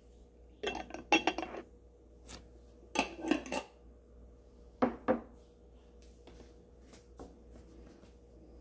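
A glass jar and dishes clinking and clattering as they are handled, in three short clusters: about a second in, around three seconds, and around five seconds, then a few faint knocks.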